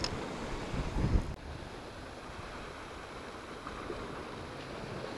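Sea waves breaking and washing over rocks, with wind buffeting the microphone. A loud low thump about a second in.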